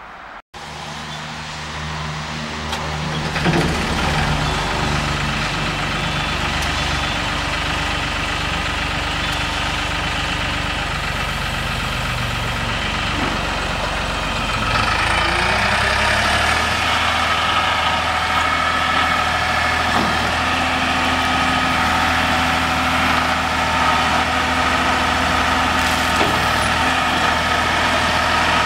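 Diesel engine of a New Holland LS180 skid steer loader running steadily. From about halfway through it turns louder and busier, as if the throttle is raised or the machine is working.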